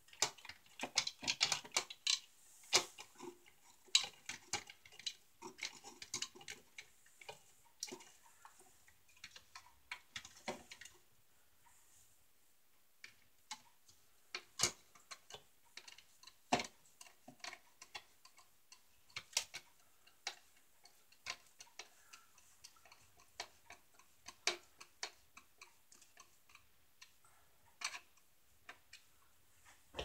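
Irregular small clicks and taps of hands working plastic and screws on a ceiling smoke alarm mounting plate. The clicks come in a busy run at first, then more sparsely after a short lull.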